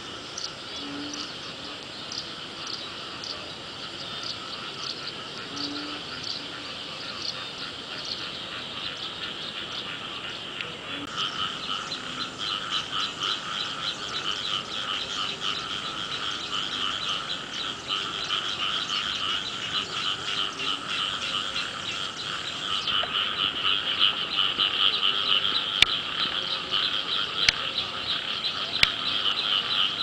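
A chorus of many frogs calling together in dense, rapid pulsing croaks. The chorus thickens and grows louder about eleven seconds in. A few sharp clicks come near the end.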